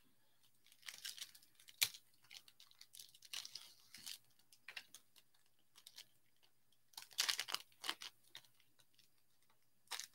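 A hockey-card pack wrapper crinkling and tearing as the pack is opened by hand, in irregular bursts of rustling with a sharp click about two seconds in.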